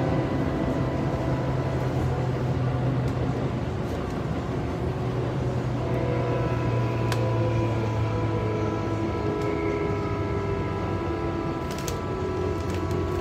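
Tobu 9000 series electric train heard from inside its motor car while running: a steady low rumble with faint motor and gear whine tones above it. A couple of sharp clicks, about seven and twelve seconds in, come from the wheels on rail joints.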